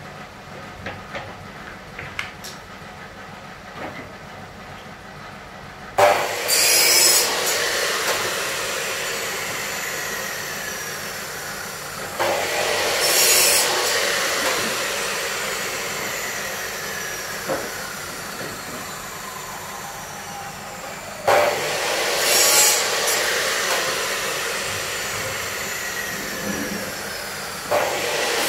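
A handheld electric power tool switched on four times in short bursts, each time spinning down slowly with a whine that falls in pitch. A few light clicks and knocks come before the first start.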